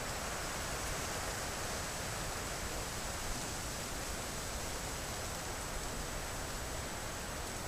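Steady, even hiss of a trail camera's microphone and outdoor background, with a faint, thin, high steady tone over it.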